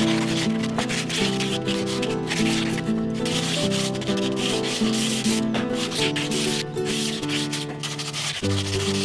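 Hand sanding block rubbing back and forth along the curved edge of a pressure-treated wood board, with background music playing sustained, stepping notes underneath.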